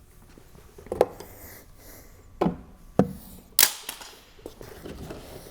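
Four sharp clicks and knocks a second or so apart, the last one with a short scraping hiss, from hand tools and sheet-metal flashing being handled while silicone is applied.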